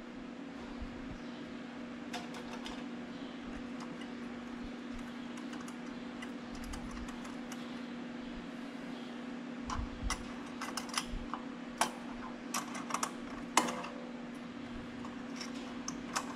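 Light, scattered clicks and taps of hand tools on metal engine fittings as a clamp and nut at the turbocharger are worked loose, bunched together about two-thirds of the way through, over a steady low hum.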